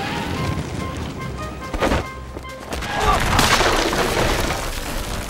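Action film score with short musical notes, a sharp impact about two seconds in, and a rising rush of noise about a second later.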